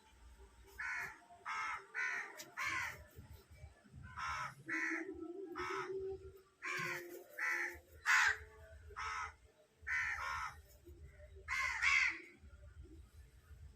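A crow cawing over and over: about fourteen short, harsh caws in twos and threes with brief pauses between the groups.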